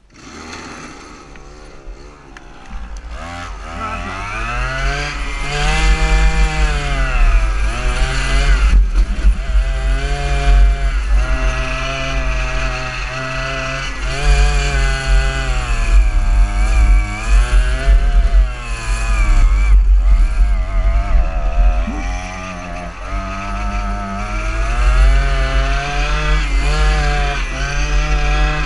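Small petrol strimmer engine powering a go-kart, revving up and down as the kart is driven, its pitch rising and falling again and again. It starts quiet and builds up over the first few seconds.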